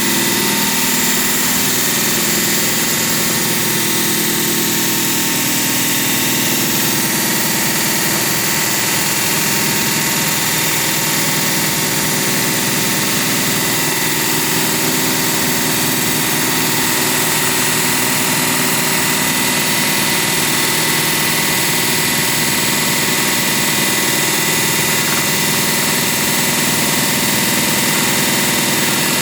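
Engine-driven concrete-cutting machine running steadily at an even level without a break, with a strong hiss over the engine note.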